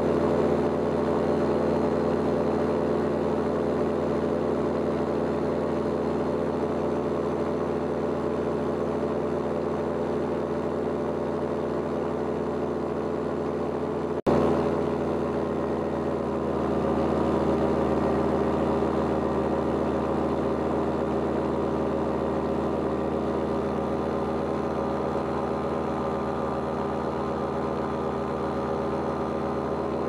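Paramotor engine and propeller running steadily in flight, a constant drone with an even pitch; the sound cuts out for an instant about halfway through.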